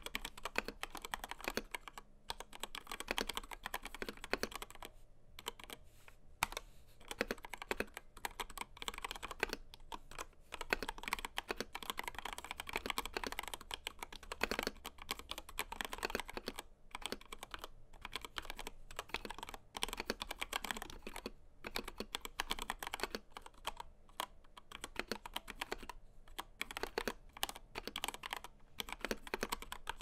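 Fast, continuous typing on a Gamakay TK68 mechanical keyboard with Gateron Red linear switches, XDA-profile PBT keycaps and unlubed stock plate-mount stabilizers. The key clacks come densely, with a few short pauses.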